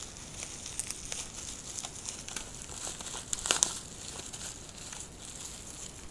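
Plastic bubble wrap crinkling and crackling as it is handled and pulled open by hand, with a short louder flurry of crackles about three and a half seconds in.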